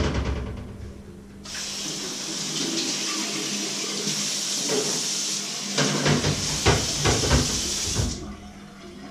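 Kitchen tap running into a sink: a steady hiss of water that starts about a second and a half in and cuts off about eight seconds in. A few knocks of things handled in the sink sound over the running water about six to seven seconds in.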